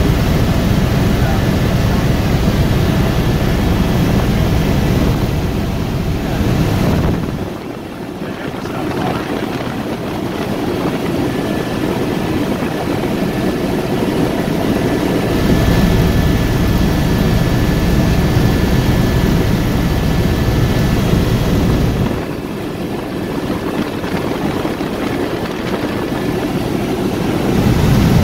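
Helicopter cabin noise in flight: the rotor and turbine running steadily, with a faint steady high whine over a deep rumble. The low rumble falls away twice for several seconds, then returns.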